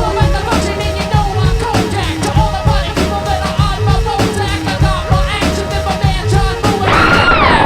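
Rock music with a steady drum beat and singing. Near the end it gives way to a louder sustained high tone that dips in pitch and climbs back.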